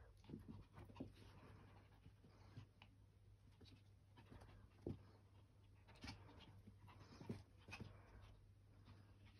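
Faint, scattered soft taps and shuffles of a small Chihuahua-type dog moving about on carpet, over a low steady hum. A few taps stand out slightly, about five, six and seven seconds in.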